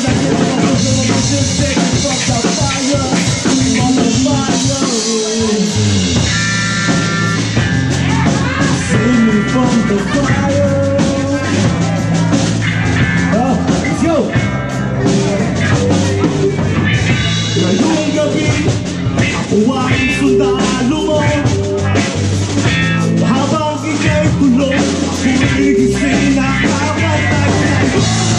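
Live rock band playing loudly: drum kit, electric bass and electric guitar, with the bass line coming in strongly about six seconds in.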